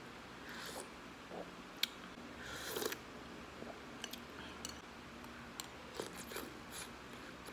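A person eating spicy soup: sips of broth from a metal spoon with wet mouth sounds and chewing, among scattered sharp clicks. The loudest click comes a little under two seconds in and a longer sip follows soon after.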